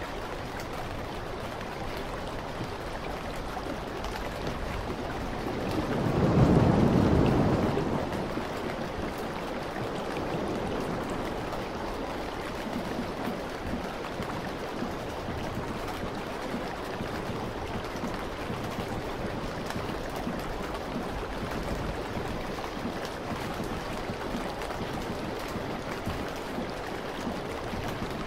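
Ocean surf breaking on a rocky shore: a steady wash of waves, with one louder wave surging up about six seconds in and dying away by eight.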